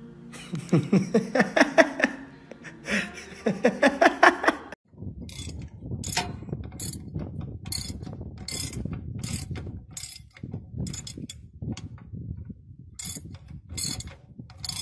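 Large steel open-end spanner (32 mm) on a big hub bolt: irregular sharp metallic clicks and creaks over a low rumble for about ten seconds. Before a cut about five seconds in, there are a few seconds of loud, wavering pitched calls in quick pulses.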